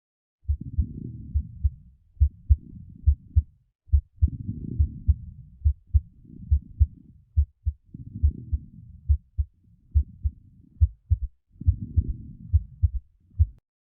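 Heart and lung sounds heard through an auscultation playback, an S3 gallop with coarse crackles (水泡音). Sharp, low heartbeat thumps in a quick galloping rhythm sound over soft breath noise that swells and fades about every two seconds, a pattern typical of heart failure with fluid in the lungs.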